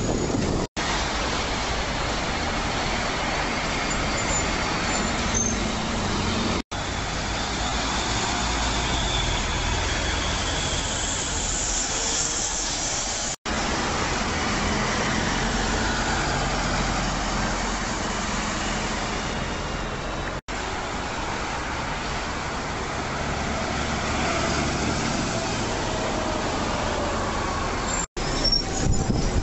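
Busy road traffic with double-decker buses running past. The sound comes in short stretches of about seven seconds, each ending in an abrupt cut with a split-second dropout.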